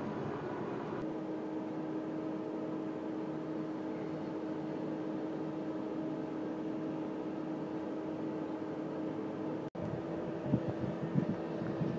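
Rolling train noise for about a second, then the steady electric hum of an electric locomotive. Near the end, wheels knock over rail joints as a Class 185 electric locomotive hauling container wagons rolls in.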